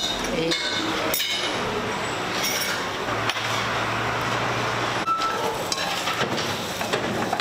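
Chopped onion and garlic sizzling in hot fat in a frying pan, a steady hiss, with a few sharp clinks of bowls and utensils.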